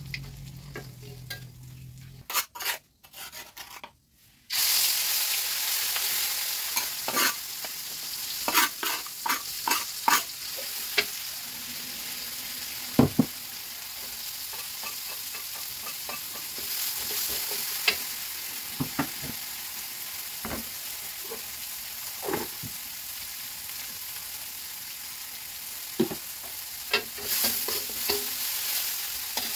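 Food frying and sizzling in a steel wok on a gas burner while a metal spatula stirs and scrapes it, with sharp clinks of metal on metal. The sizzle comes in loudly about four seconds in and then holds steady.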